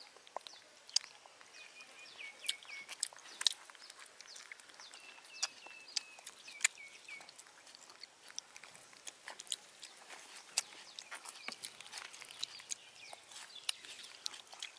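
Baby monkeys chewing and smacking on soft food: irregular small wet clicks throughout, with a few short high chirps in the first half.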